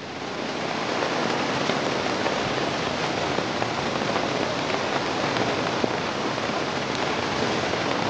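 Heavy rain falling steadily on a wet, muddy road: an even hiss that swells over the first second and then holds.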